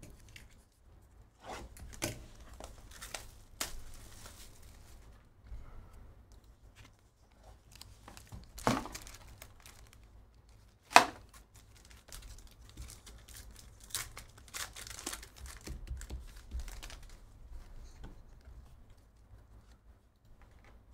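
Trading card box and foil pack being opened by hand: packaging rustling and tearing, wrapper crinkling, with scattered sharp clicks and two louder snaps, the loudest about 11 seconds in.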